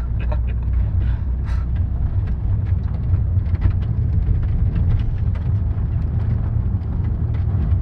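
Car engine and tyres heard from inside the cabin while driving: a steady low drone, with scattered light ticks over it.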